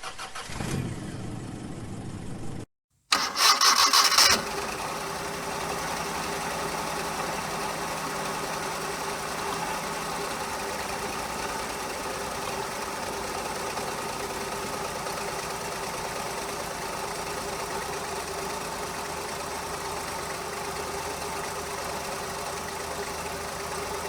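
Maruti 800's three-cylinder petrol engine starting about three seconds in, with a loud burst as it catches, then idling steadily. The engine is misfiring at random across its three cylinders when hot, which the mechanic puts down to a spark problem.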